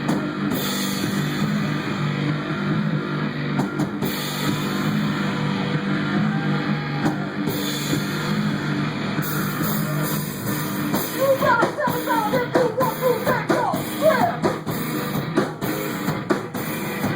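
Live rock band playing: drum kit, distorted guitars and bass. In the second half, fast high notes slide up and down over the beat.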